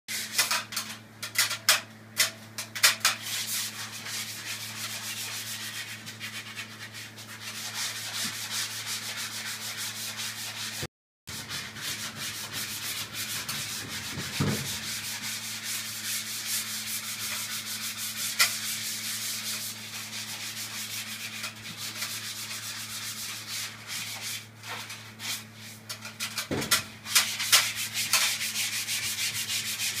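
Plaster being sanded by hand in irregular scratchy strokes, over the steady low hum of a KDK 15WHC window exhaust fan running.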